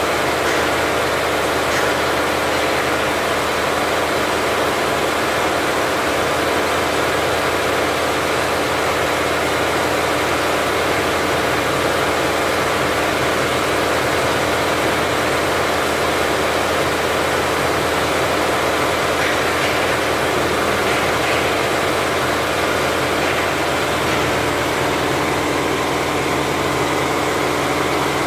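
Richpeace 20-head flat embroidery machine running at 1200 RPM: a steady, even mechanical noise of many needle heads stitching at once.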